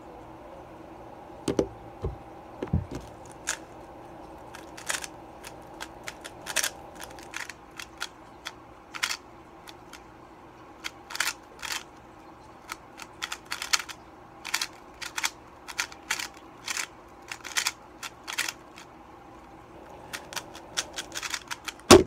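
3x3 plastic speed cube being turned rapidly by hand, a quick irregular run of clicks and clacks. A few low thumps come near the start, and at the end a loud slap as the cube is set down and the hands hit the speedcubing timer's pads to stop it.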